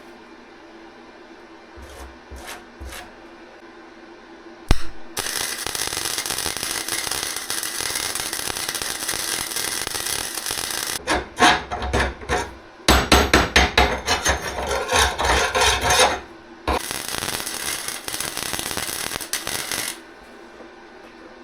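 Forney Easy Weld flux-core wire welder running an arc: a steady frying hiss that starts about five seconds in, breaks into uneven stuttering bursts in the middle with two short stops, then runs steadily again until shortly before the end. A few light clicks come before the arc starts.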